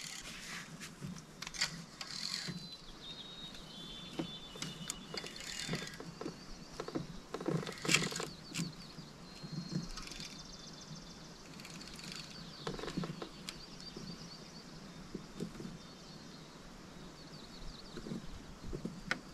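Scattered small clicks and knocks of a spinning rod and reel being handled while a hooked fish is played, with faint whistled bird notes coming and going in the background.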